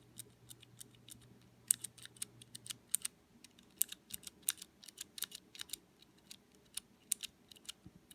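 Blue clicky mechanical keyboard switch in a key tester, modified with a shimmed silicone O-ring, pressed over and over: an irregular run of sharp clicks, several a second.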